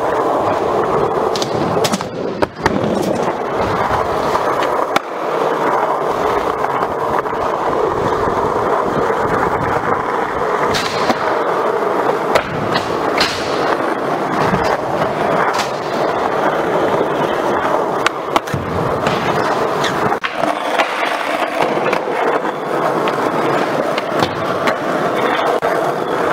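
Skateboard wheels rolling steadily on a smooth floor. Sharp clacks of the board break in several times as tricks are popped and landed.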